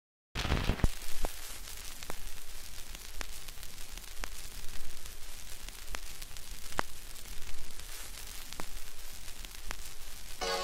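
Gramophone record surface noise: a steady hiss and crackle with a sharp click about once a second. Accordion music starts right at the end.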